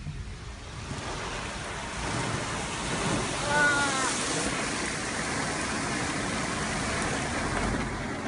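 High-pressure water jet pounding on a car's windows and body, a steady rushing hiss heard from inside the car. A person shouts "ahh" briefly about three and a half seconds in.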